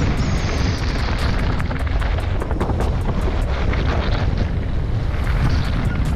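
Mountain bike riding fast down a dry dirt and gravel trail: heavy wind rumble on the microphone, with tyres crunching over loose stones and frequent rattles and knocks from the bike.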